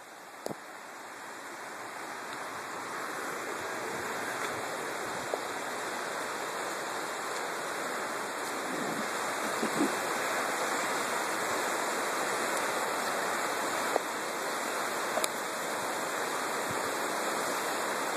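River water rushing steadily over shallow rapids, growing louder over the first few seconds, with a few faint clicks.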